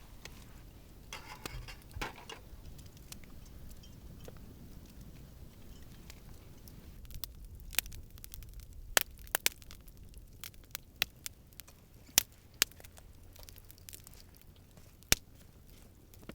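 Wood campfire crackling, with sharp, irregular pops of burning wood over a low steady background.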